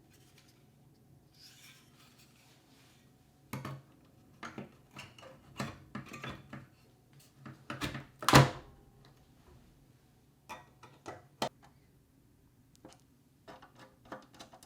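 Computer parts being handled and fitted during a small form factor PC build: a run of small clicks and knocks, the loudest knock about eight seconds in, then more scattered clicks, over a faint steady hum.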